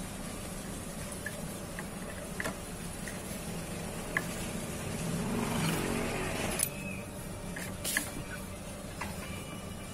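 Light metal clinks of a socket wrench being fitted and turned on the clutch nut of a motorcycle's exposed clutch, a few separate ticks over a steady hum. Midway a passing vehicle swells up and fades away.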